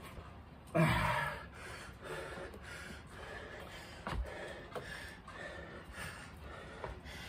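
A man breathing hard between high-intensity exercises: a loud heavy breath about a second in, then a run of shorter, softer breaths.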